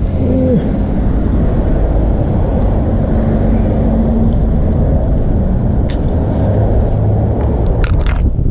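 Wind buffeting the microphone, a loud steady rumble, with a brief squeak about half a second in and a few sharp clicks near the end.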